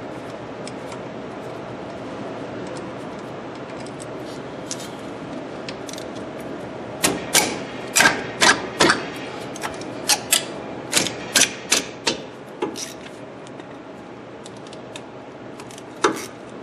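Hand ratchet clicking in short, uneven runs as a brake caliper bolt is backed out, mostly in the middle of the stretch, with one more click near the end.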